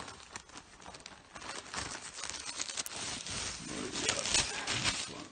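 Clear plastic bag crinkling and rustling as it is handled and reached into, with the paper coupons inside shifting, getting busier and louder after about three and a half seconds.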